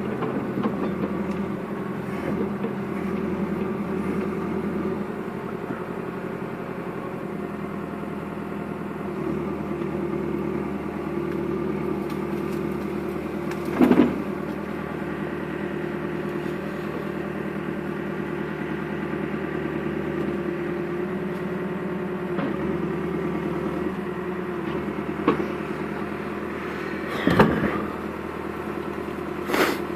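Backhoe engine running steadily, its pitch shifting a little as it works, with a few loud sharp knocks or cracks, the loudest about halfway through and near the end.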